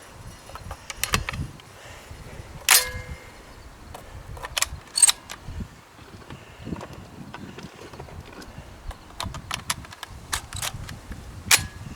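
Scattered sharp cracks and clicks, the loudest about three seconds in with a brief metallic ring, others near five and eleven and a half seconds.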